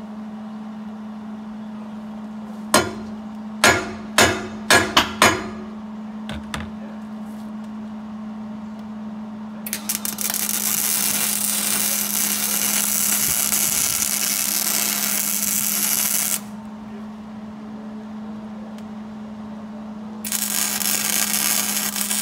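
About seven sharp hammer blows on steel. Then an electric arc welder crackles and hisses steadily for about six seconds while welding on a tobacco transplanter's steel frame, stops, and starts again near the end. A steady hum runs underneath throughout.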